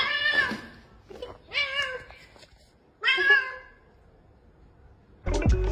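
Domestic cat meowing three times, each call about half a second long, bending up and then down in pitch. Music starts near the end.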